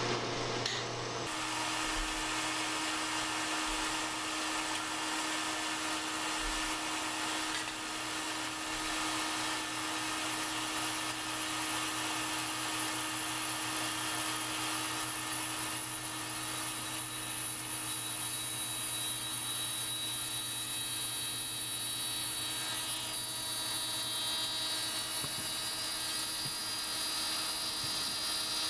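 Vertical milling machine running at a steady pitch, its small end mill cutting along the cocking slot of a Weihrauch HW95 air-rifle piston. The cutter takes light passes to knock off the high spots in the slot.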